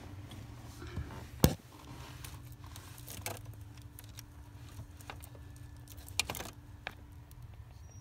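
Scattered sharp clicks and knocks of a screwdriver and wiring connectors being handled under a pickup's dashboard, the loudest about a second and a half in, over a low steady hum.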